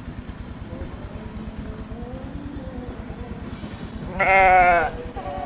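A Garole (garol) sheep bleats once, loud and wavering, for under a second near the end.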